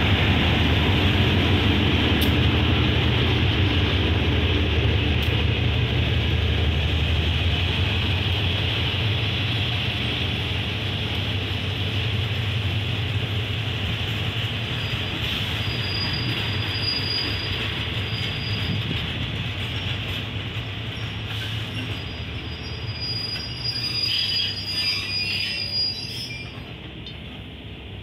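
GEA-class diesel-electric locomotive's engine running as it pulls past, its low hum fading as the coaches roll by and slow. A thin high wheel and brake squeal sets in about halfway through, with louder squeals near the end as the train comes to a stop.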